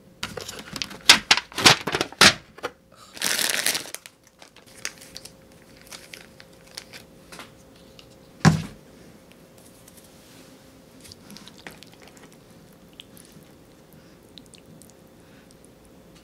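Cardboard pizza boxes and plastic condiment sachets being handled: sharp crinkling and rustling for the first four seconds, a single thump about eight and a half seconds in, then faint taps and clicks.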